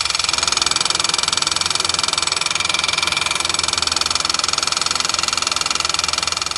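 Hyundai HB20 Turbo's engine running with a loud, fast, steady ticking clatter from its failing high-pressure fuel pump.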